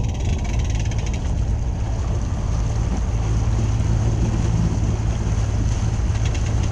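Bass boat running across the water: the outboard motor's steady low drone under heavy wind buffeting on the microphone and water rushing past the hull, the drone growing a little louder about three seconds in.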